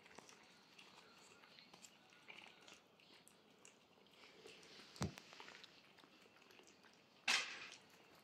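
Chihuahua puppy eating from a plate: faint small clicks of chewing and licking, with a single sharp knock about five seconds in and a short, louder noisy burst near the end.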